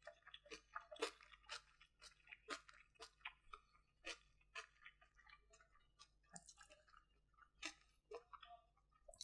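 Close-miked chewing with crisp crunches, a quick run of crunchy bites in the first half that thins out in the second.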